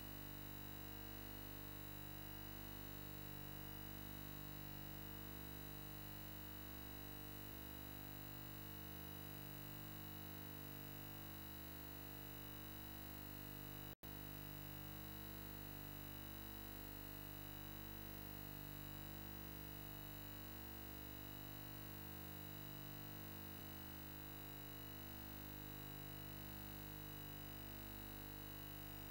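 Steady electrical hum and buzz made of many constant tones, with a faint slow pulsing about every two seconds and one momentary dropout to silence about halfway through.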